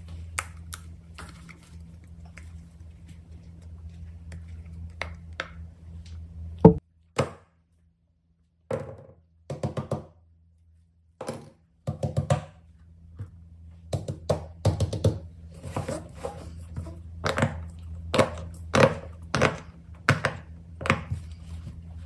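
Fidget toys being handled and set down, giving a series of sharp taps and clacks over a steady low hum. The sound drops out for a few seconds about seven seconds in, then the taps come thicker near the end.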